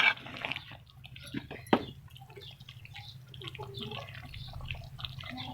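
Liquid bubbling and dripping, typical of a pot of aloo matar curry simmering, over a steady low hum. There are a few sharp knocks in the first two seconds, the loudest at the very start and just before the two-second mark.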